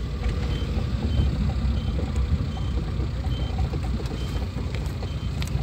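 Vehicle engine and road rumble heard from inside the cab while driving, steady and low, with a faint short high-pitched beep repeating about every three quarters of a second.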